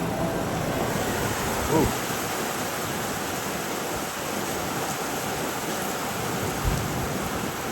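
Heavy rain pouring down in a steady, dense hiss during a thunderstorm.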